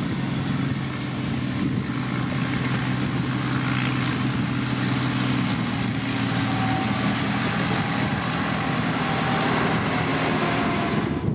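Diesel engine of a heavy road-building machine, such as a motor grader or road roller, running steadily at a constant pitch, with a wash of mechanical noise over it.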